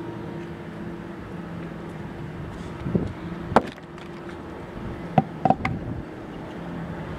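A 2008 Sea-Doo RXP 215's supercharged four-stroke engine running steadily at idle, with a few sharp knocks around three and five seconds in.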